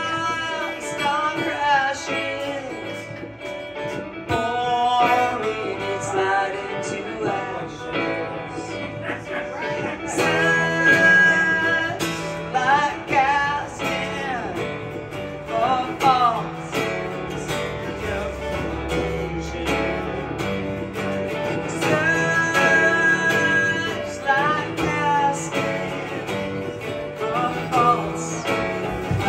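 Live solo performance: a man singing while strumming an acoustic guitar.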